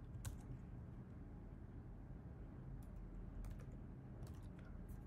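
A few scattered keystrokes on a computer keyboard, irregular taps over a faint steady low room hum.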